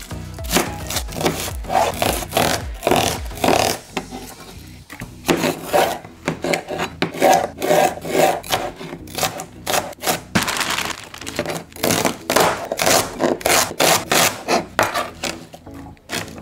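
Chef's knife chopping bell peppers and celery on a cutting board: quick repeated strokes, several a second, with background music underneath.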